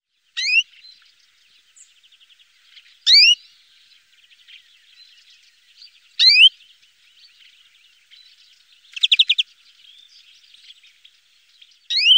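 A songbird repeating a sharp, quickly rising whistled call, four times at intervals of about three seconds, with a short rapid buzzy trill a little after the middle and faint twittering in between.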